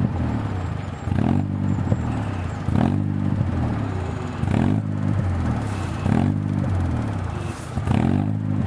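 Jeep engine revving up and falling back again and again, roughly every second and a half, with a few brief knocks between revs.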